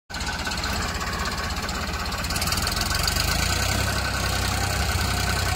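Farmtrac tractor's diesel engine running steadily under load while towing a second tractor out of deep mud, with an even low knocking rumble that gets a little louder about two seconds in.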